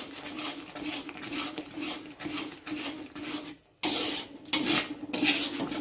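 Metal spatula stirring a thick, starch-thickened sauce in a wok, with repeated scrapes and taps against the pan and a short break about two thirds of the way through.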